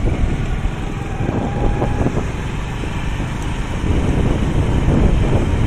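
Steady wind rumble on the microphone mixed with engine and road noise from the vehicle carrying the camera as it drives along a street.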